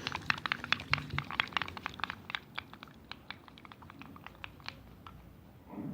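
Rapid clicking of a utensil against a bowl as a mix of green dish detergent and toothpaste is stirred to dissolve the toothpaste. The clicks fade out after about four seconds.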